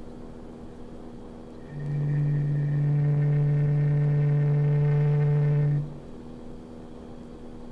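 A low, steady drone note that swells in about two seconds in, holds for about four seconds and stops, over a faint low hum; the same note comes and goes again.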